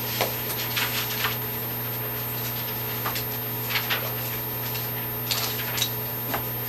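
Room tone of a small room: a steady low hum with scattered small clicks and light knocks, the handling sounds of people sitting at a table.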